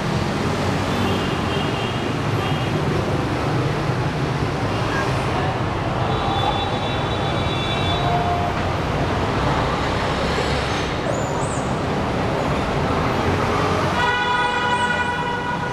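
Steady road-traffic noise, with a horn sounding for about two seconds near the end.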